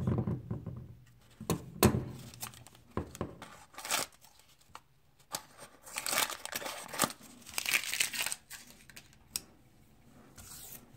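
Pair of old steel shears snipping through a paper till receipt: a string of short cuts with the paper crinkling as it is handled, showing the vintage shears still cut.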